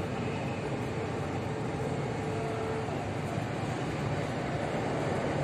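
Cercanías commuter train running at speed through a short tunnel, heard from inside the carriage: a steady rumble of wheels and running gear, with a faint whine held for a couple of seconds near the start.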